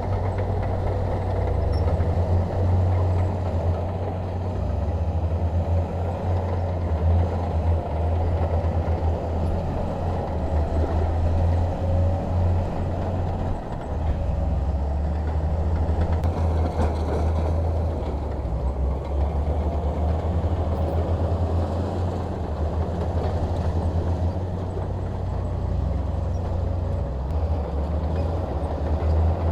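Bulldozer's diesel engine running steadily at work, a deep drone with small rises and falls in level.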